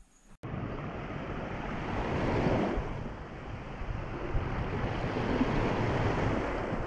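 Small waves washing and breaking onto a sandy shore, with wind rumbling on the microphone; the sound starts abruptly about half a second in.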